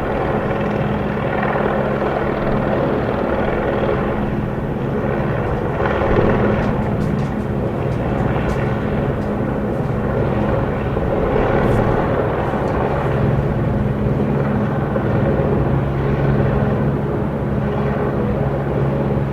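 Hovering police helicopter: a steady drone of rotor and engine with low humming tones, swelling gently in loudness now and then.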